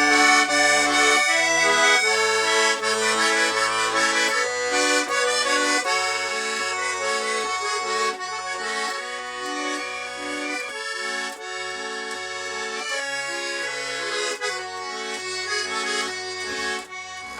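Accordion playing an instrumental interlude between sung verses of a folk song: a melody over an alternating bass-note and chord accompaniment, growing somewhat quieter in the second half.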